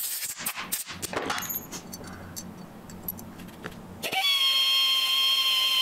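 Tool handling clicks and knocks, then about four seconds in a drill starts and runs at a steady speed with a high whine as it bores the exhaust-valve hole in the two-stroke's aluminium cylinder.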